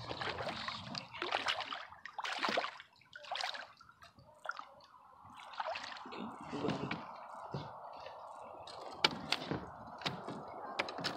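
Water splashing and dripping beside a kayak as a just-landed blue catfish is handled, in irregular splashes over the first few seconds. Then a steady hiss, with a few sharp clicks near the end.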